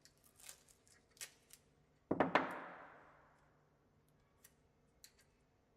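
Masking tape being handled for marking depth on a flat drill bit: a few light clicks and taps, then a sharp rasp of tape about two seconds in that fades away over a second or so, followed by faint ticks.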